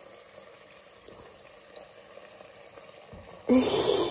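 Chicken in curry seasoning sizzling faintly in a hot frying pan. About three and a half seconds in comes a sudden loud burst of noise, a close-by scrape or knock.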